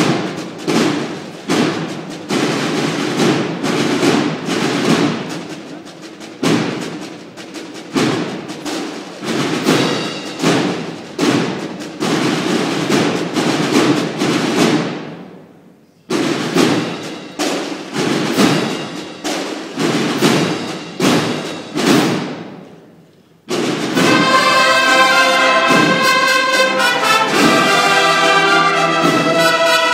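Processional brass-and-drum band playing a march in a reverberant concert hall. The drums play alone in a steady pattern of strokes that twice fades away, then the brass section comes in about 23 seconds in.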